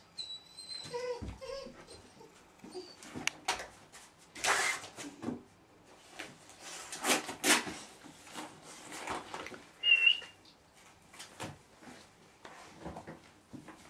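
Weimaraner puppy giving a few short, high whines, one near the start and the loudest about ten seconds in, among irregular bursts of scuffling and rustling.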